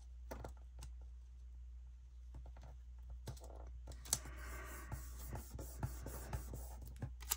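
Faint clicks, taps and crinkles of a floral planner sticker being handled on its clear backing and pressed onto a paper planner page, with a sharper click about four seconds in.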